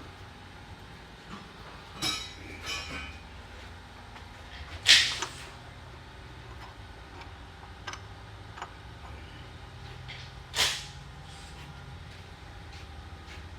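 A handful of short knocks and clinks as parts and tools are handled during a Powertrax locker installation in a differential, the loudest about five seconds in and another near the end. A steady low hum runs underneath.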